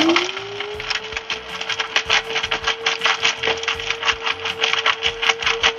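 Electric blade spice grinder running with whole allspice berries, the berries rattling and clicking rapidly against the blade and cover. The motor's whine rises in pitch over the first second as it spins up, then holds steady.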